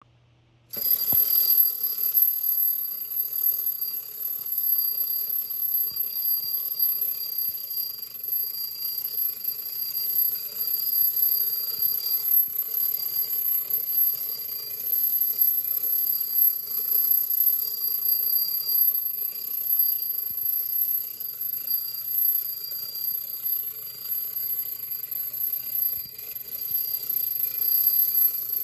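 Clockwork motor of a tin wind-up toy running after release, a continuous mechanical rattle of spring-driven gears as the platform and teacups spin, starting about a second in.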